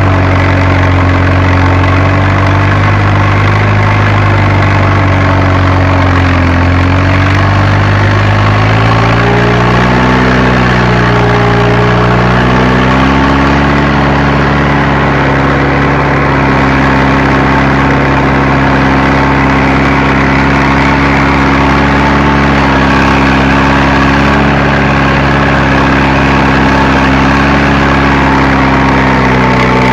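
Fiat Agri tractor's diesel engine running while working a field. Its pitch sags slightly a few seconds in, climbs about a third of the way through, and then holds steady at the higher speed.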